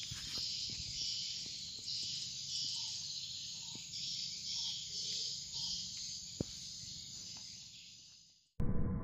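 Chorus of insects buzzing high and steadily, swelling in short pulses, with a single faint click about six seconds in. It cuts off abruptly near the end.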